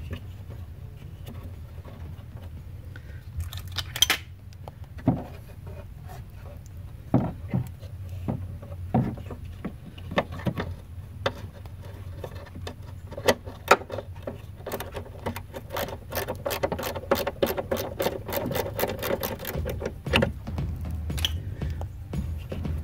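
Hands handling and cleaning the electrical connector of the EVAP leak detection pump under a VW Jetta: scattered clicks and knocks, then a fast, even run of clicks for several seconds in the second half, over a steady low hum.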